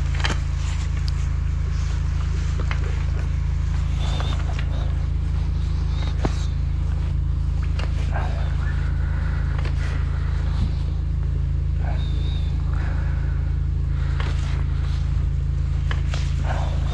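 Steady drone of a high-pressure drain jetter's engine running at a constant pace while its hose works in a flooded stormwater pit, with a few short clicks over it.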